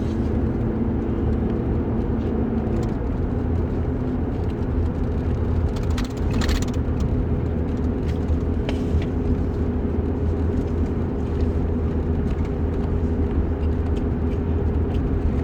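Steady low rumble of a motor vehicle, with a few faint steady tones above it.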